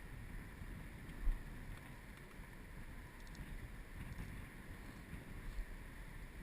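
Wind buffeting the microphone as a steady low rumble, with one brief louder bump about a second in.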